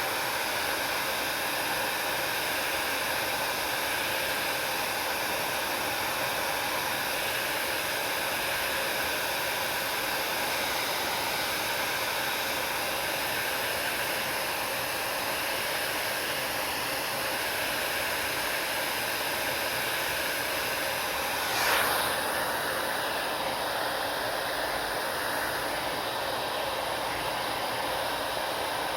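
Hair dryer blowing steadily: an even rushing hiss of air with a faint steady motor whine. About 22 seconds in there is a brief knock or click, after which the highest part of the hiss is a little duller.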